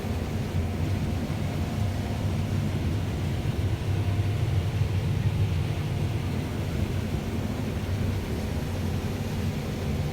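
Heavy diesel engine of harvest machinery running steadily: a low, even drone.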